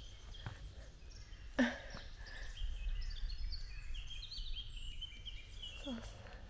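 Several songbirds singing, with many short high chirps and trills overlapping, over a steady low rumble of wind or handling noise. One louder sharp sound about a second and a half in.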